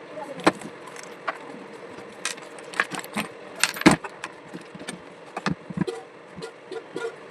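Irregular metallic clicks, clinks and knocks of small parts and tools being handled while working on a table fan, with one heavier knock about four seconds in.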